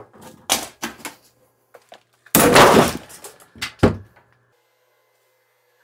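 A few light clatters as plastic filament spools are set onto a loaded swing, then about two seconds in a loud crash as the carbon-fibre nylon 3D-printed hook breaks and the swing with its dumbbells, medicine balls and filament spools drops to the floor, followed by one more thump just before four seconds in.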